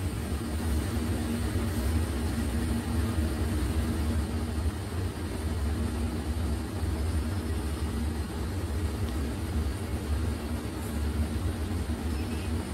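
Steady mechanical drone of textile mill machinery, rows of spinning frames running, with a low hum and a faint high whine held throughout.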